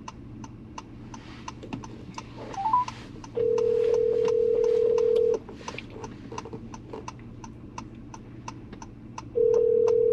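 Outgoing call's ringback tone heard through a mobile phone's speaker: a steady tone in two rings of about two seconds each, the second starting about four seconds after the first ends, as the call rings unanswered. A short rising blip comes just before the first ring.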